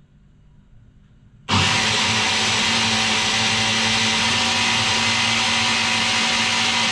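Electric blender switched on about a second and a half in, then running steadily at one speed with a low hum under the whirring, blending a strawberry, banana and yogurt shake.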